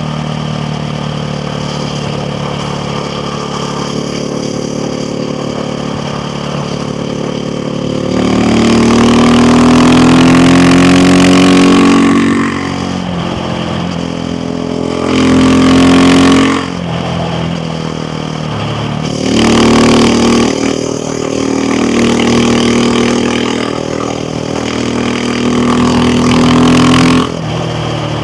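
KTM Duke 690R's single-cylinder engine running steadily at low revs, then accelerating hard about eight seconds in with rising pitch. This is followed by several more pulls, each building and then dropping off sharply as the throttle is closed, the last near the end.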